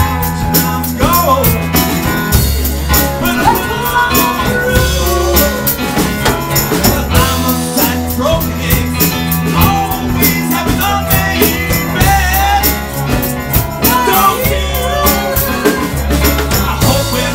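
Live rock band playing loudly: electric bass and drum kit keeping a steady beat, with a man singing lead over them.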